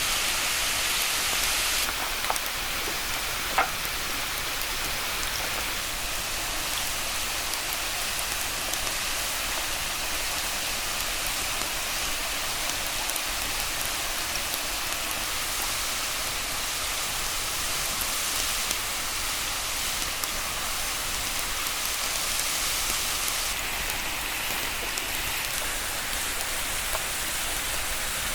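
Steady hiss of a waterfall's falling water, with one sharp click about three and a half seconds in.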